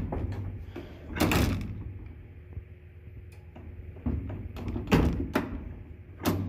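Elevator hoistway door hardware clunking as the door's interlock and roller assembly is pushed and slid by hand. There is a series of sharp metal knocks, with a longer sliding rumble about a second in.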